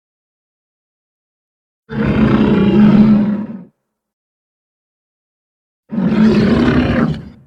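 Two film sound-effect Tyrannosaurus rex roars, each about a second and a half long. The first starts about two seconds in and the second about six seconds in, with silence between.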